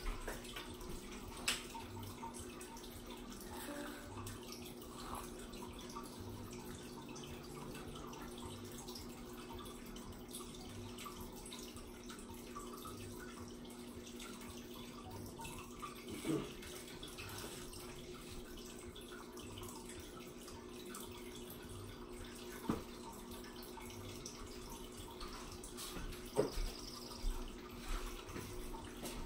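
Quiet room tone: a faint steady hum with a few scattered brief clicks.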